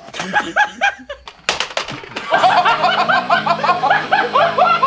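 Several people laughing and giggling together, the laughter swelling about two seconds in, after a couple of sharp clicks near the start.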